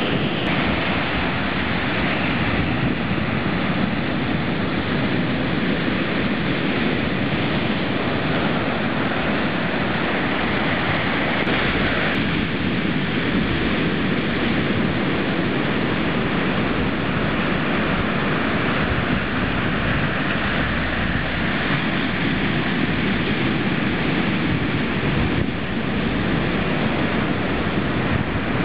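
Ocean surf breaking steadily, with wind on the microphone.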